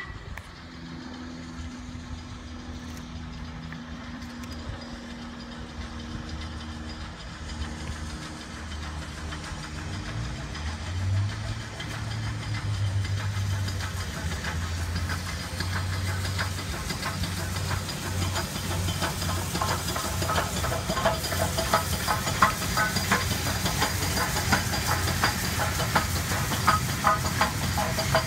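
Two steam locomotives, an LMS Stanier 8F 2-8-0 and an LNER Thompson B1 4-6-0, approaching together with a train, steam hissing and the sound growing steadily louder. As they draw close in the second half, a fast run of clicks and knocks from the engines and wheels grows louder.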